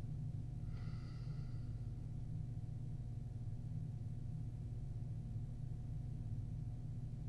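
Steady low hum of room tone in a small interrogation room, as picked up by its recording system. About a second in, a brief faint high-pitched sound rises over it.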